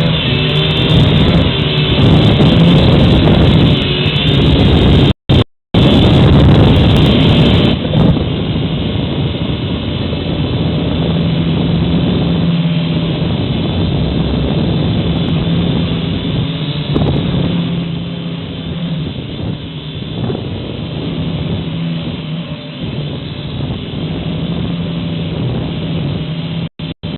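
Syma X5HW toy quadcopter's four small electric motors and propellers buzzing steadily, heard close up through its own onboard camera microphone, with rough wind noise over it, heaviest in the first eight seconds. The audio drops out briefly twice about five seconds in.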